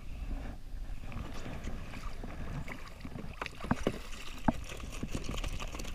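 Steady wind and water washing against a jet ski hull, with a few sharp knocks and splashes in the second half as a hooked fish is brought up thrashing at the surface beside the ski.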